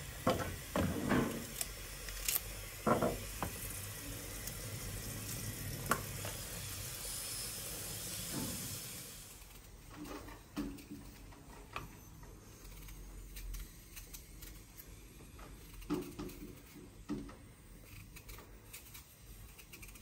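Hand food-prep sounds: a knife and vegetables knocking on a wooden cutting board, over a steady hiss that stops about halfway. After that come quieter clicks and scrapes of a small knife peeling a potato.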